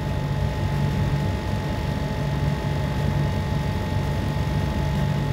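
Steady background hum and hiss with a faint, constant high whine, like a running fan or air conditioner or electrical noise in the recording; no strokes or clicks stand out.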